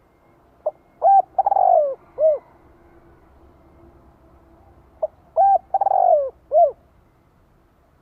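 Spotted dove cooing: two phrases about four seconds apart, each a brief note, a short coo, a long falling coo and a final short coo.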